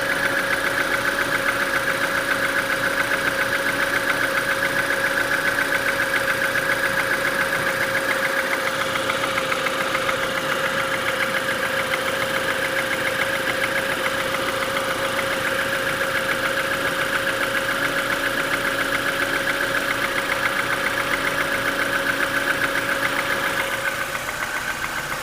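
Renault Mégane II engine idling with a steady, rapid knock that appeared after the timing belt was replaced. The sound gets a little quieter near the end.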